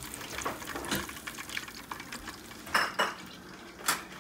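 Metal tongs and fried chicken knocking against a deep fryer's wire basket and a wire cooling rack, with a few sharp clacks, the loudest near the end, over a faint sizzle of hot oil.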